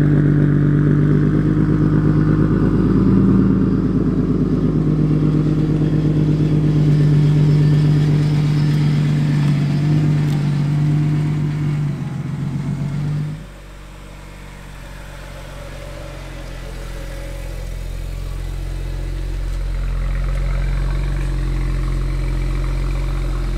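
2008 BMW 135i's single-turbo inline-six idling steadily and loudly. About halfway through it cuts abruptly to a quieter, deeper engine idle that slowly grows louder.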